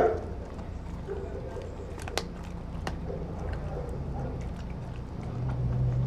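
Doberman chewing and biting food from a stainless steel bowl, with two sharp clicks a little after two and three seconds in, over a low steady hum.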